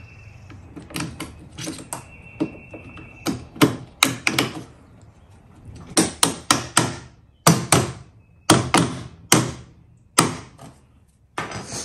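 Claw hammer tapping bolts through the tight-fitting holes of a plastic dinghy-wheel bracket: a series of sharp taps in quick groups, starting about three seconds in, after some lighter clicks of the bolts and bracket being handled.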